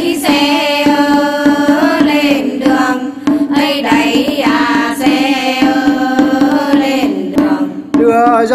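Women's group singing a Phú Thọ Xoan folk song (hát xoan) together, in long held, ornamented phrases, kept in time by hand clapping and beats of a small drum. A new phrase starts near the end after a brief breath.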